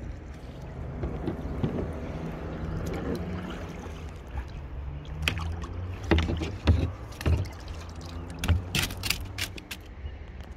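A small boat is paddled along close to derelict hulls, with a low steady rumble of water and wind. In the second half comes a run of sharp knocks and splashes, as paddle and hull strike and water slaps.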